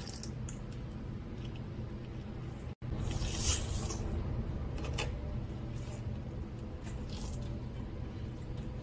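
Wet squelching and rubbing of raw squid being handled on a plastic cutting board as the head and innards are pulled free of the body. There is a louder wet pulling burst about three and a half seconds in, then softer scattered rubs, over a steady low hum.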